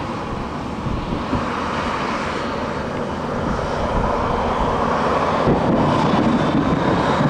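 Twin-engine jet airliner on final approach, its engines' roar growing steadily louder as it nears. A faint high whine comes in over the roar in the second half.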